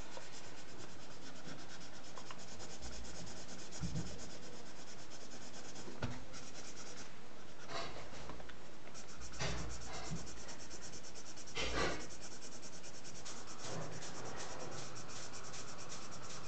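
Felt-tip marker scratching across paper in rapid back-and-forth strokes as an area is coloured in, with a few louder scrapes along the way.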